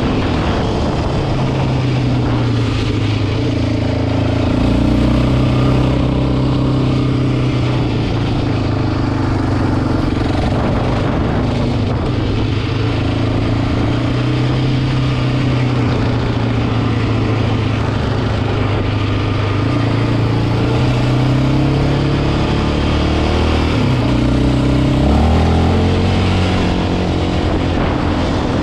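2008 Yamaha Raptor 700 ATV's single-cylinder four-stroke engine running steadily under way, its pitch shifting a few times with the throttle.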